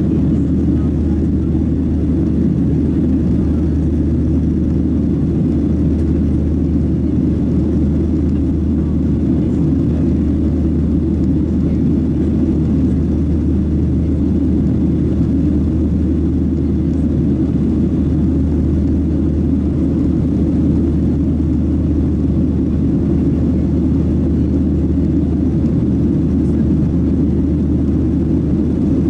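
Steady cabin noise of a Boeing 737-700 climbing after takeoff, heard inside the cabin: an even, low rumble of the CFM56-7B engines and airflow that holds constant throughout.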